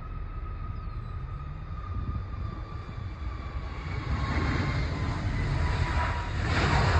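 Jet airliner's engines at takeoff power as it climbs out, a steady whine slowly falling in pitch, with the roar growing louder over the last few seconds.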